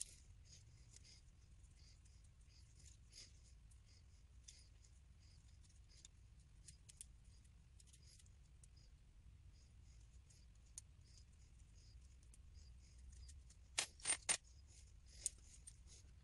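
Faint handling noises: small plastic ticks and scrapes as a disassembled Milwaukee M12 FUEL cordless ratchet's housing, wires and circuit board are worked apart by hand. Near the end comes a quick run of three sharp clacks.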